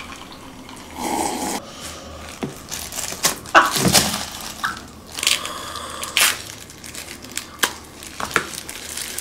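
Cooked king crab legs being cracked and pulled apart by hand, with the crinkle of thin plastic food gloves and the crunch and tearing of the shell in scattered bursts. A short burst of laughter about four seconds in.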